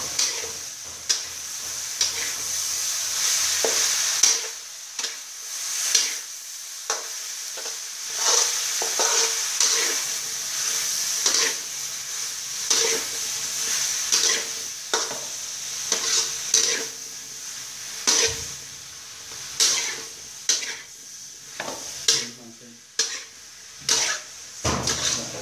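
Vegetables and minced pork sizzling in a metal wok with a steady frying hiss, while a metal spatula scrapes and clanks against the pan about once a second as the food is stir-fried.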